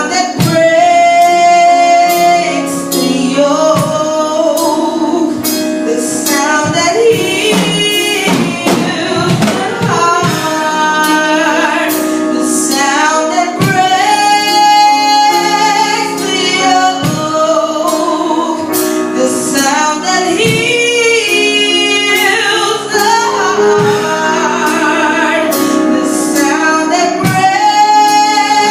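Gospel worship music: a woman sings the lead over instruments, with a steady percussion beat.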